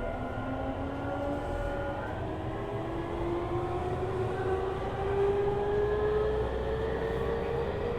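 Tokyu 5000 series train with Hitachi IGBT-VVVF inverters: several layered inverter and traction-motor whine tones climb steadily in pitch as the train accelerates, over a low rumble of running noise.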